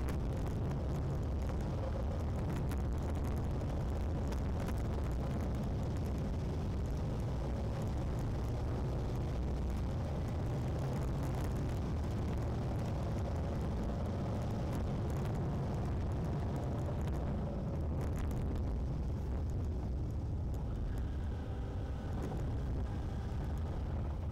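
Car driving along a road, heard from inside the cabin: a steady low rumble of engine and tyre noise at an even level.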